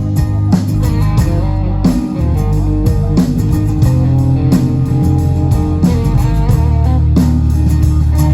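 Live rock band playing an instrumental passage between vocal lines: an electric guitar melody over a bass line and a steady drum beat.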